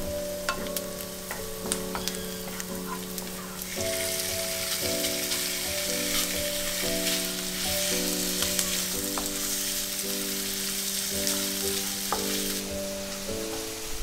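Diced onion sizzling in oil in a frying pan as a wooden spatula stirs it, with small crackles and ticks. About four seconds in the sizzle turns louder and fuller as diced raw chicken goes into the pan, then eases off near the end. Soft background music with held chords plays underneath.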